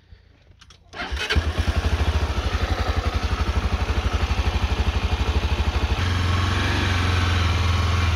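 Motorcycle engine starting about a second in and running with a fast, even pulse, then getting louder and steadier about six seconds in as the bike moves off.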